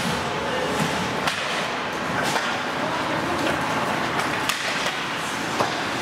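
Ice hockey play in a rink: a steady wash of skates on the ice and crowd chatter, broken several times by sharp clacks of sticks and puck.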